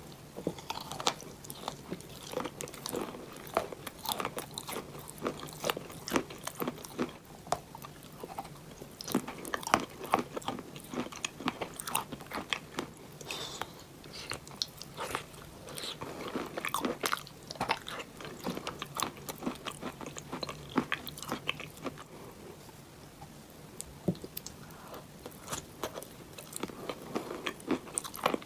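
Chalk being bitten and chewed close to the microphone: many sharp crunches in quick, irregular succession.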